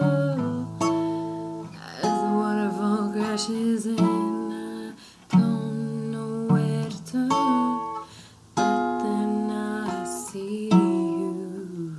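Acoustic guitar strummed in a slow song, a new chord struck every second or two and left ringing between strums.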